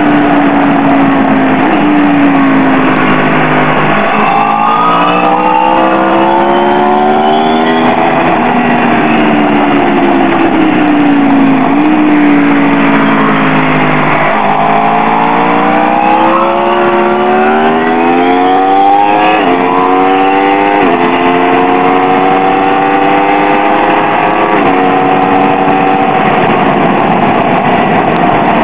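BMW S1000R inline-four sport-bike engine accelerating hard through the gears on track: the pitch climbs and drops sharply at each upshift, then winds down twice as the bike slows for corners. Steady wind rush runs under it.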